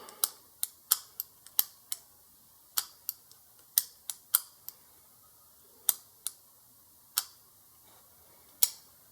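Daewoo Cielo trunk lock mechanism clicking as its latch is worked by hand to test a replacement spring: sharp metallic clicks at uneven intervals, coming thick and fast for the first few seconds, then more sparsely.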